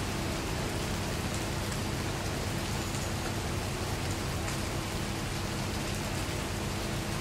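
Steady rain falling, an even hiss with scattered small drop ticks and a faint low hum underneath.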